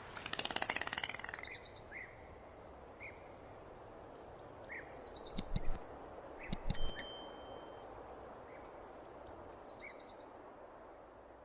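Dolphin clicking and whistling: a rapid buzz of clicks fades out in the first second or so, followed by short falling whistles repeated a few times, a handful of sharp clicks and a brief steady whistle near the middle, over a steady hiss.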